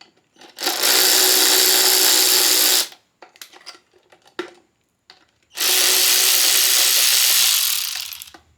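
Cordless power drill running in two steady bursts of about two seconds each, driving bolts on the intake heat-shield mounting. The second burst winds down as it stops, and a few small clicks fall between the bursts.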